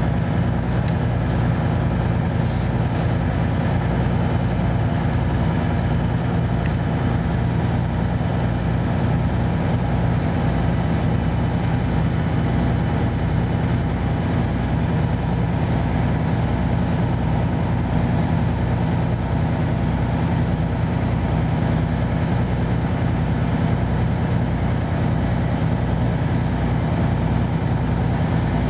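Detroit Diesel 6V92TA two-stroke V6 diesel of a 1995 Nova Bus Classic idling steadily, heard from inside the bus as it stands at a stop.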